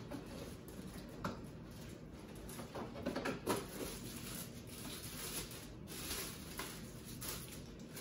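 Clear plastic packaging crinkling and rustling as wrapped parts are handled and lifted out of a cardboard box, louder for a moment about three seconds in.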